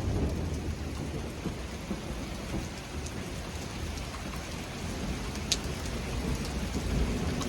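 Steady rain falling during a thunderstorm, with low thunder rumbling underneath that builds near the end. A single sharp tick about five and a half seconds in.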